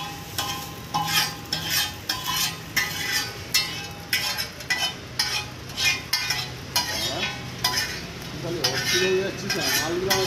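Metal spatula scraping and striking a large flat iron griddle in quick regular strokes, about two a second, as noodles are stir-fried on it.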